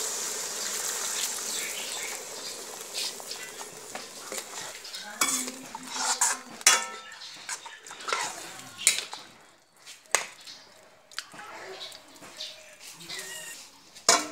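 Potato curry sizzling in a metal wok with water just added, the hiss dying down over the first four seconds or so. Then a metal utensil clinks and knocks against the wok several times.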